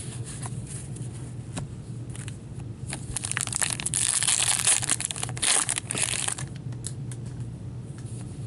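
A 2016-17 O-Pee-Chee hockey card pack being torn open, the wrapper ripping and crinkling for about three seconds midway through. Light clicks of cards being handled come before and after.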